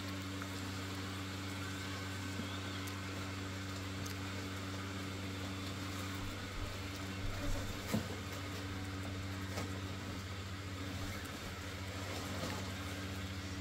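Built-in blower fans of Christmas yard inflatables running with a steady electric hum as an inflatable fills with air. A few short knocks come about seven to eight seconds in.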